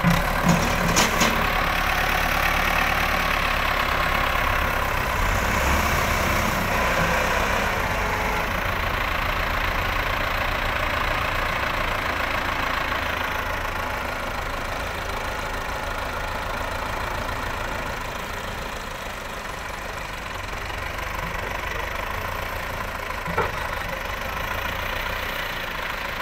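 Diesel tractor engines running steadily near idle, with a few short knocks about a second in and one more near the end.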